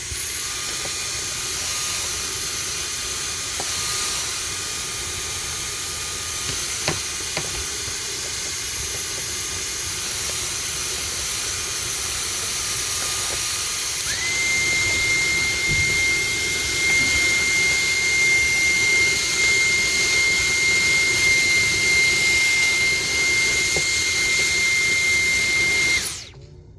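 Vacuum cleaner running steadily, sucking dust off refrigerator condenser coils. About halfway through, its whine steps up to a higher pitch, and near the end it is switched off.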